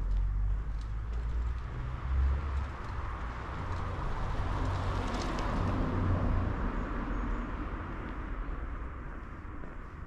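A road vehicle passing by, its tyre and engine noise swelling to a peak about five seconds in and then fading, over a steady low rumble.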